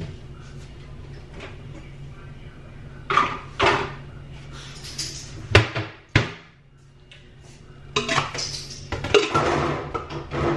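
Kitchenware being handled on a countertop: scattered clatters of dishes, with two sharp knocks in the middle and a busier spell of clatter near the end, over a steady low hum.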